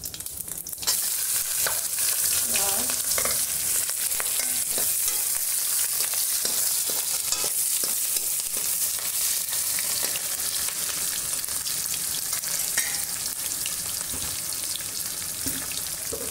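Chopped onion dropped into hot oil with cumin seeds and dried red chillies in a kadhai: the oil starts sizzling loudly about a second in and keeps frying steadily. A metal ladle clicks and scrapes against the pan as it stirs.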